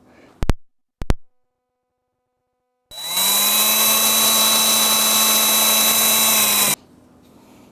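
Two short clicks, then a Poulan Pro PP4218A 42cc two-stroke chainsaw engine running loud and steady at high revs for about four seconds, catching and running on its newly fitted carburetor. The engine sound starts and stops abruptly.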